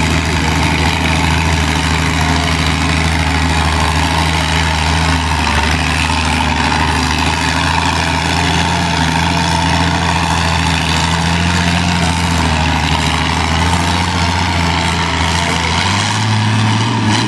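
Antique farm tractor engine running hard and steady as it pulls a weight-transfer sled down the pulling track; its pitch steps up near the end.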